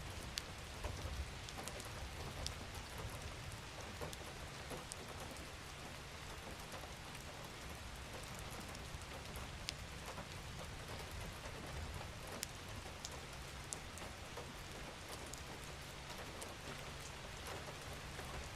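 Steady rainfall: a soft, even hiss with scattered single drop ticks and a low steady rumble underneath.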